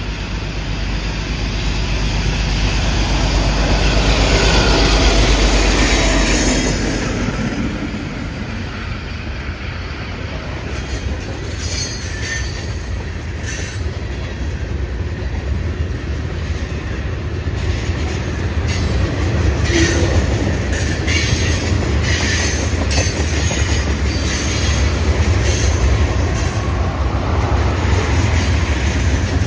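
A diesel-hauled freight train passing close by. The lead locomotive grows louder and goes by about five seconds in, its pitch falling as it passes. Then a long string of loaded freight cars, mostly tank cars, rolls past with a steady rumble and repeated wheel clicks over the rail joints.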